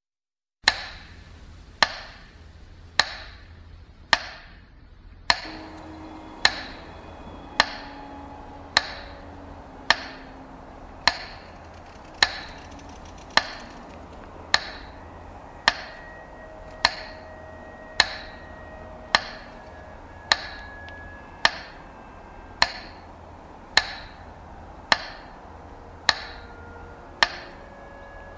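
Sharp knocks repeating at a steady pace of just under one a second, each ringing briefly, starting under a second in. Faint held tones sound underneath and shift in pitch now and then.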